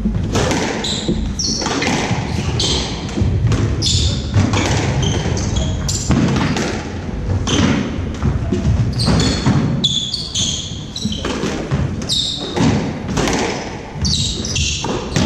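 Squash rally: the ball cracks off rackets and the court walls in repeated sharp hits, about one every half-second to second. Short high squeaks of court shoes on the wooden floor come between the hits.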